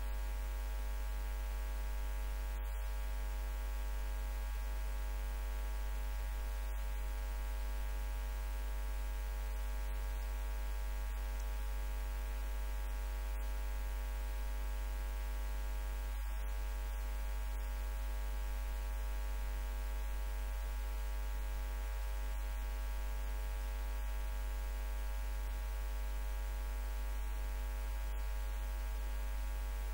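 Steady electrical mains hum with no let-up: a strong low drone with a ladder of evenly spaced higher overtones above it, and no voices heard over it.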